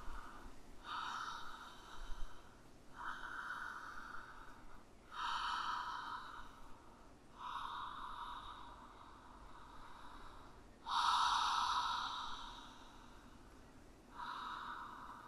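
A woman breathing deeply through an open mouth in a steady in-and-out breathwork rhythm, each audible breath lasting one to three seconds with brief gaps between. One breath about eleven seconds in is the loudest.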